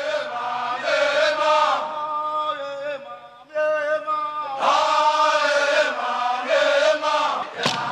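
Men's voices chanting together in long held notes, a Zulu group chant. The chant drops away briefly about three and a half seconds in and comes back louder about a second later.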